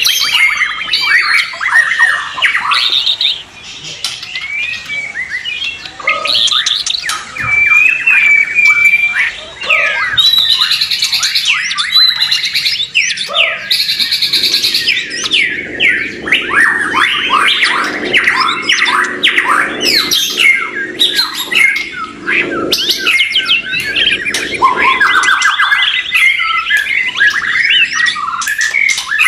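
Several white-rumped shamas (murai batu) singing at the same time: a dense, unbroken tangle of overlapping whistles, gliding notes and rapid runs of short notes.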